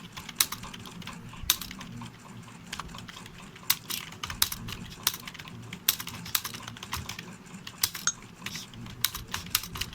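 Computer keyboard being typed on at an uneven pace, roughly two or three keystroke clicks a second.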